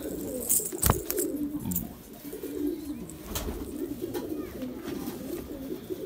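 Domestic pigeons cooing, several at once in a continuous low murmur, with a few sharp clicks and rustles, the loudest about a second in.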